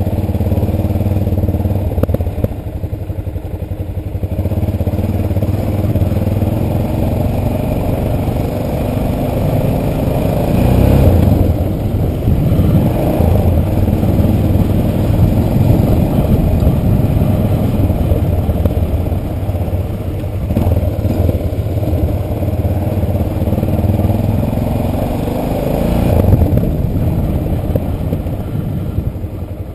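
Onboard sound of an adventure motorcycle's engine riding a dirt track, the revs rising and falling as the rider works the throttle. It fades out near the end.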